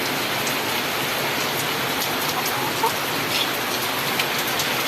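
Heavy rain pouring steadily: an even hiss with scattered sharper drop ticks.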